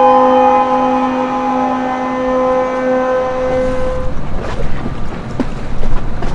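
Ship's horn sounding one long, steady blast that fades out about three and a half seconds in, then wind and water noise with scattered knocks.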